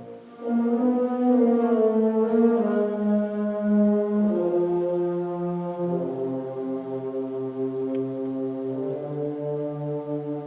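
Slow brass music: long held notes, several sounding together, stepping downward in pitch.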